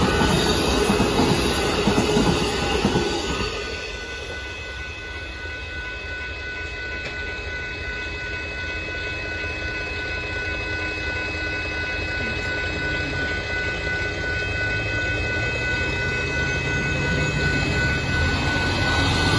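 The last Amtrak Superliner cars of the Texas Eagle passenger train rumble over the crossing for the first three seconds or so. Then the grade-crossing warning bell rings on steadily, stopping right at the end. A road vehicle's engine grows louder near the end.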